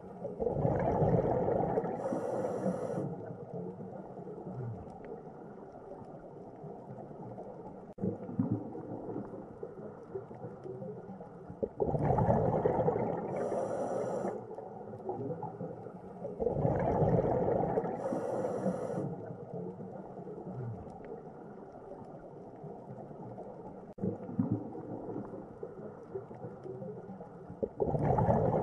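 Looping ambient background track: low, slowly gliding sounds that swell louder in a phrase repeating about every sixteen seconds, each swell ending with a brief high shimmer.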